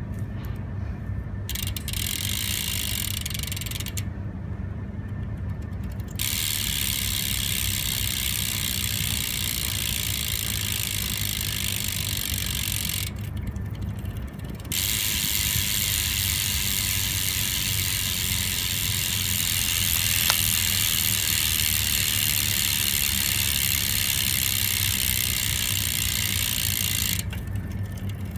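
Profile Mini SS BMX hub freewheeling, its pawls clicking over the ratchet so fast they make a steady high buzz. The buzz comes in three long stretches with short breaks between, over a steady low hum.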